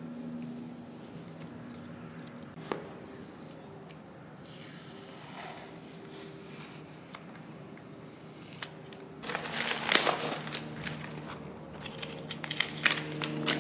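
Masking tape and masking paper being peeled off a freshly spray-painted brake lathe casting, crackling in quick bursts from about nine seconds in. A steady high insect trill runs underneath.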